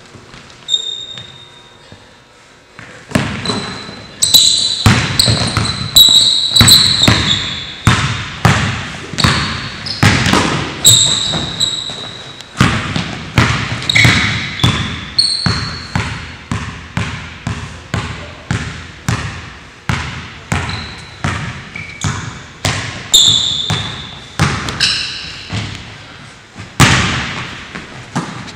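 A basketball dribbled on a hardwood gym floor, bouncing about once or twice a second from about three seconds in. Short high squeaks of sneakers on the floor come in among the bounces.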